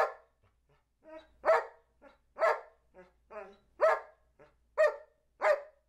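An Old English Sheepdog gives a series of short, pitched barks on command as a counting trick: six loud barks about a second apart, with softer short sounds between them.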